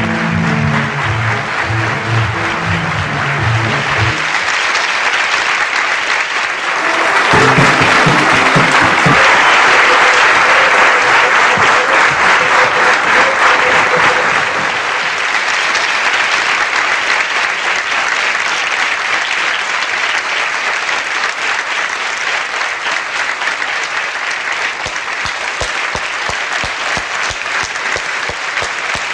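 Theatre audience applause, a steady dense clapping that swells and is loudest a few seconds in. Instrumental music plays under it over the first few seconds and briefly again about seven seconds in.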